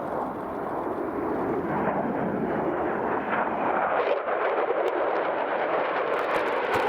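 Mitsubishi F-2 fighter's single F110 turbofan jet engine roaring as the jet flies past, growing slightly louder, with a crackle in the noise near the end.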